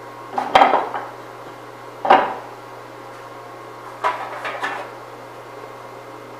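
Knocks and clatter of a wooden spinning form and a brass tone ring blank being fitted onto a metal-spinning lathe's spindle, in three bursts: about half a second in, at two seconds, and a double knock around four to five seconds in. A steady hum lies underneath.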